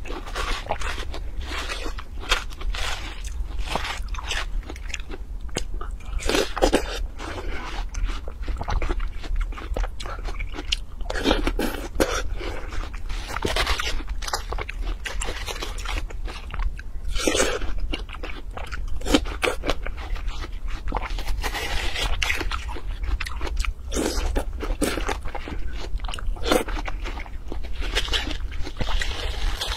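Close-up crunching bites and chewing of fresh watermelon flesh, with a metal spoon scraping and digging into the melon; irregular crisp crunches come one after another over a low steady hum.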